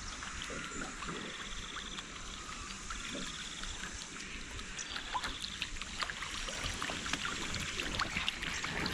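Water lapping and trickling around a small boat, with scattered small clicks. A short high buzz recurs about every two seconds.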